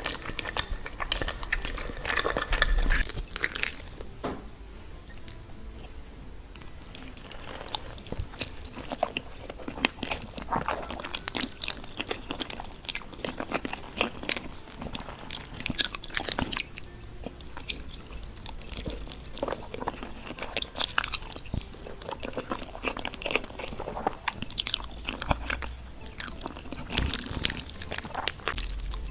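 A person eating creamy, cheesy pasta for a mukbang: chewing with irregular wet mouth clicks and smacks.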